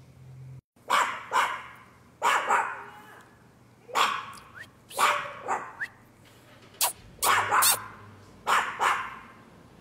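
A dog barking repeatedly, about a dozen barks, many in quick pairs about half a second apart with pauses of a second or so between.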